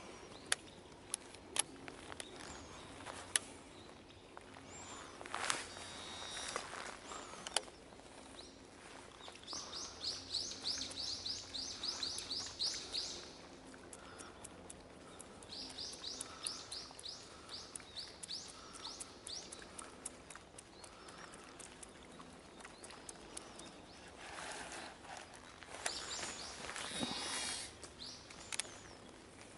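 A bird singing fast trills of high chirps, two bouts of a few seconds each, over faint outdoor background, with a few sharp clicks.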